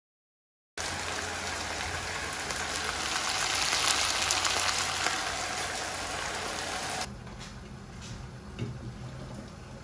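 Cubes of meat sizzling and crackling in oil in a frying pan, starting about a second in and dropping away about seven seconds in to a quieter kitchen background with a few light knocks.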